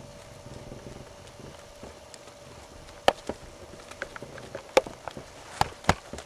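A pinto pony's hooves going at a canter on soft arena footing: low muffled thuds. Several sharp clicks or knocks come irregularly in the second half, the loudest about three seconds in.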